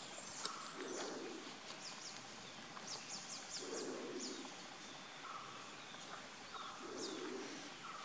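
Forest birdsong: a low call repeated three times, about three seconds apart, with many high, thin, quickly falling chirps from small birds between them.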